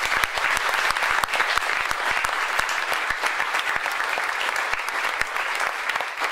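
An audience applauding: many hands clapping at once, steady all through.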